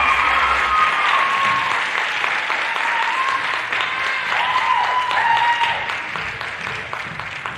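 Audience applauding and cheering, with high whoops and shouts over dense clapping, slowly dying down toward the end.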